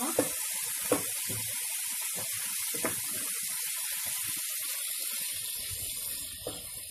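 Chicken pieces sizzling in hot oil in a frying pan, a steady hiss, with a few knocks and scrapes of a spatula as it stirs the pan.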